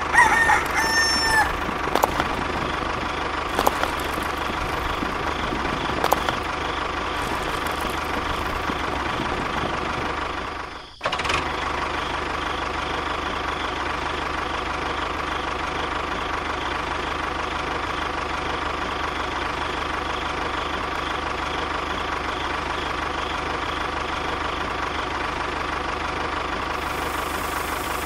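A rooster crows at the start, then a model tractor's small electric motor runs steadily with a constant whine, cutting out briefly about eleven seconds in before running on.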